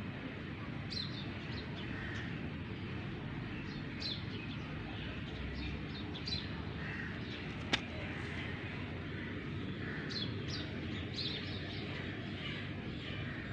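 Small birds chirping in short high calls scattered through, over a steady low rumble. A single sharp click about halfway through.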